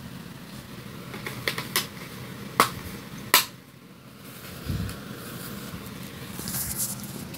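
Art supplies being handled in a wooden art box: a few light clicks, then two sharp clicks about a second apart, a dull low thump, and a short rustle near the end, over a steady low hum.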